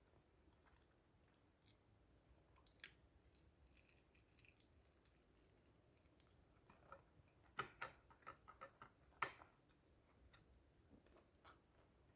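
Faint chewing and biting on fried chicken, with scattered soft clicks and a quick run of louder sharp clicks about seven to nine seconds in.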